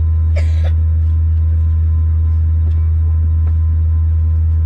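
Cabin noise of an Airbus A321neo taxiing: a loud, steady low drone from the engines at idle and the rolling aircraft, with a faint steady whine above it. A brief hiss about half a second in.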